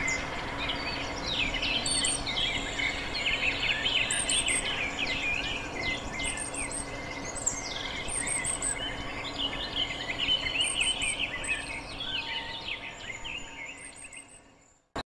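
Chorus of many small birds chirping and calling over a steady background hiss, with a short high ticking call repeating every second or so. It fades out near the end, followed by a single sharp click.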